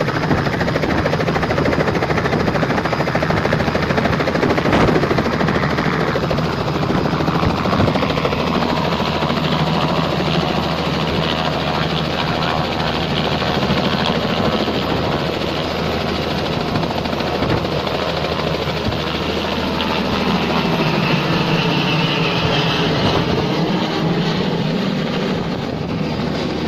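Light two-bladed helicopter running with its rotor turning on the pad, then lifting off and flying away. The rotor and engine noise is loud and continuous, and it eases off slightly near the end as the helicopter moves away.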